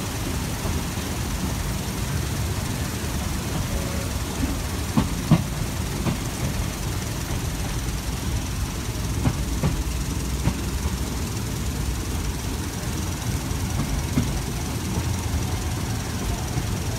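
Passenger train running along the track, heard from inside a carriage: a steady low rumble with a few short knocks about five seconds in and again around nine to ten seconds.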